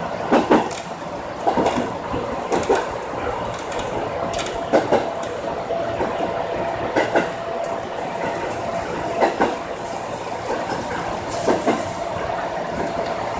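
JR 205-series electric commuter train running, heard from inside the cab: its wheels clack over rail joints in close pairs about every two seconds over a steady running hum, with a faint steady tone in the middle of the run.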